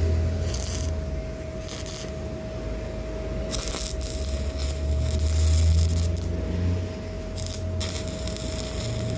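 Arc welding: a steady hum from the welding machine, with the crackle and hiss of the arc coming and going in bursts as the weld is laid on the grate.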